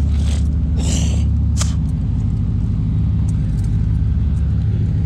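Car or truck engine running steadily at a low idle. Three short, high-pitched scraping or squeaking noises come in the first two seconds.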